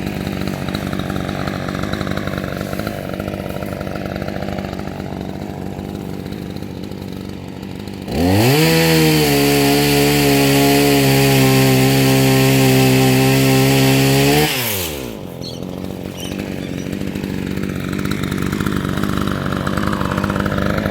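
Two-stroke chainsaw idling, then revved to full throttle about eight seconds in, the pitch rising sharply and holding high and steady for about six seconds before dropping back to idle.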